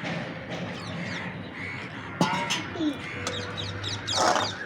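Crows cawing outdoors: one harsh call a little over two seconds in, and a louder one shortly before the end.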